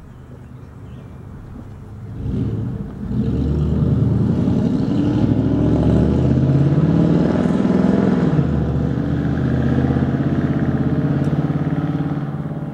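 A motor vehicle engine running close by. It comes up about two seconds in, stays loud with its pitch rising and falling, and fades away near the end.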